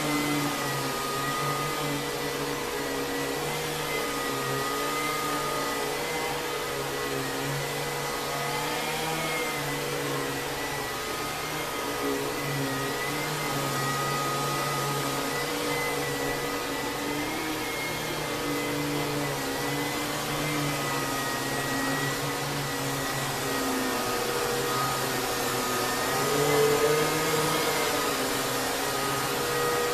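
Kenmore Progressive canister vacuum cleaner running steadily, its Lamb electric motor giving a steady rush of air with a high whine that wavers slightly in pitch. It is briefly a little louder near the end.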